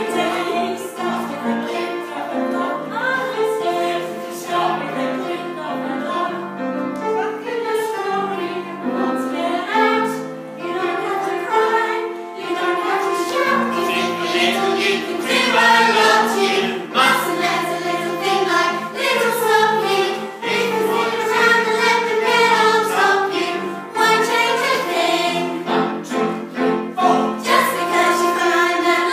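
A group of women singing a song together as a choir.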